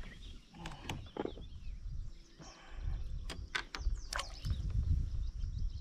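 Sharp clicks and light knocks from handling and unhooking a freshly landed bass beside a kayak, a few about a second in and a cluster between three and four seconds in, over a low rumble.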